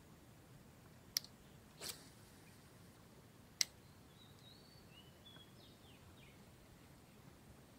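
Quiet outdoor ambience with faint bird chirps around the middle. Two sharp clicks, about a second in and about three and a half seconds in, and a short rasp just before two seconds stand out.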